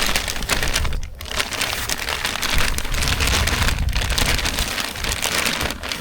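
Steady pattering of falling precipitation on a nearby surface in a winter storm, dense fine ticks with a low rumble underneath, briefly easing about a second in and again near the end.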